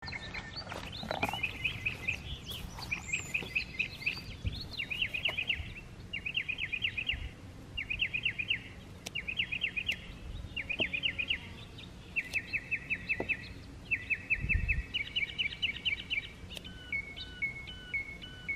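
Songbird singing a short, rapid trilled phrase over and over, roughly once a second. Near the end a second bird joins with a different pattern of clear whistled notes stepping up and down.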